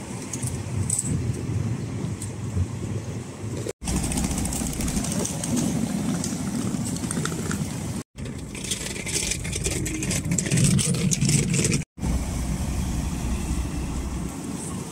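Engines of large parked touring coaches idling, a steady low rumble with some outdoor hiss over it, cut by three brief silences.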